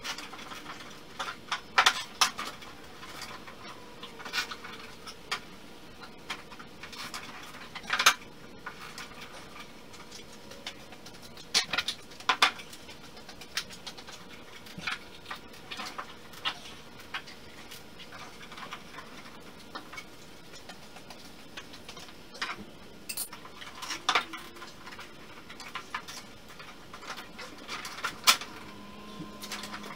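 Irregular light knocks, taps and clicks of thin plywood boat panels and hand tools being handled and fitted by hand, with a few sharper knocks standing out.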